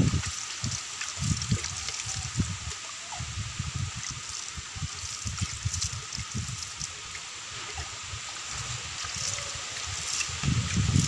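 Water poured from a plastic mug and splashed by hand onto damp potting soil and the leaves of young cuttings. Dull low thumps just after the start and again near the end are the loudest sounds.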